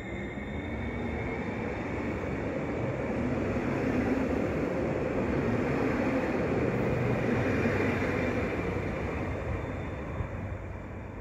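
Koleje Mazowieckie electric multiple unit pulling out past the platform, with a rising electric whine as it gathers speed and the steady running noise of its wheels on the rails. It grows louder to a peak in the middle, then fades as the train clears the station.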